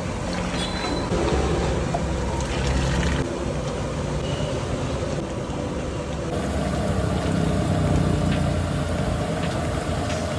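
Steady rushing noise of a gas burner firing under a large aluminium kadai of gravy, with a few light clinks of the metal ladle stirring.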